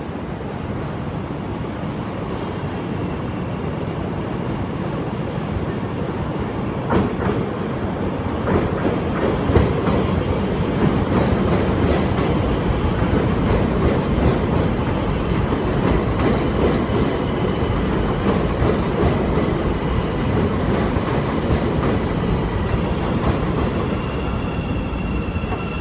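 CTA 5000-series 'L' train pulling into an elevated station: a steady rumble of steel wheels on rail that builds over the first ten seconds, with clacking over the rail joints from about seven seconds in as the cars pass close by. A thin high whine comes in near the end.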